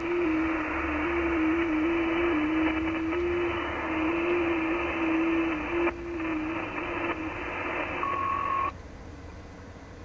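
Icom IC-7600 transceiver's receive audio on the 30 m band: steady band hiss with an FT8 signal's low tone stepping up and down in small pitch jumps, which stops about seven seconds in. A brief steady higher tone follows, then the hiss cuts off suddenly near nine seconds as the station switches over to transmit.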